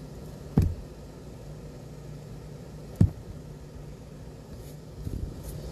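Steady low hum of room noise with two short, dull knocks about two and a half seconds apart, and a few softer bumps near the end.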